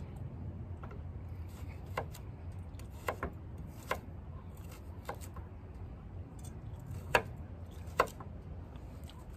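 Chef's knife chopping peeled sweet potato on a wooden cutting board: about seven sharp knocks at irregular spacing, the loudest two toward the end.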